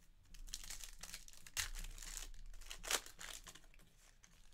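Foil wrapper of a Panini Revolution Basketball card pack being torn open and crinkled by hand: a crackling rustle with two louder sharp crackles, about one and a half and three seconds in.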